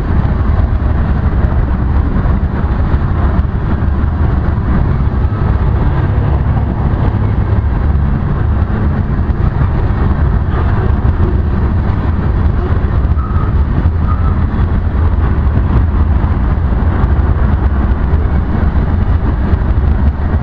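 Ferromex freight train of covered hopper cars rolling past close by: steady, loud rumble of steel wheels on the rails.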